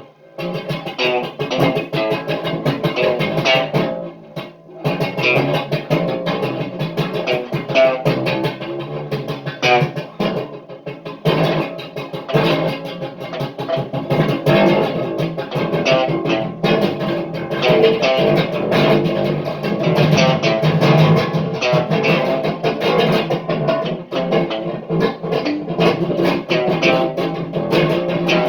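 Guitar being played: a continuous stream of quick plucked notes, with a brief break about four seconds in.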